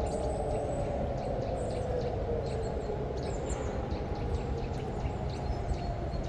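Several distant electronic civil-defence sirens sounding the rising-and-falling warning wail: the tone glides down and fades through the middle, then swells again near the end. This is the public warning signal, meaning danger to the population.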